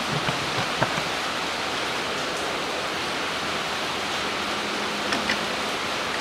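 Steady hiss of rain, with a few light clicks and taps as the unbolted throttle body is handled, near the start and again about five seconds in.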